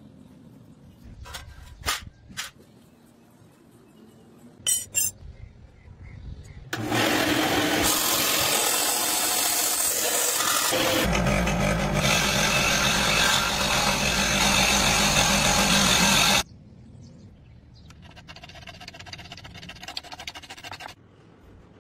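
A few light clicks and knocks of brass and wood fittings being handled, then a power tool blade cutting through brass plate: loud and steady for about nine seconds, starting and stopping abruptly. After it, a hand file rasps along the notched edge of a small brass disc.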